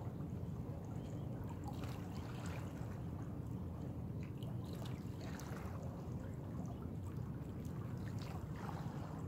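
Small waves lapping and trickling against shoreline rocks, with faint scattered splashes over a steady low rumble.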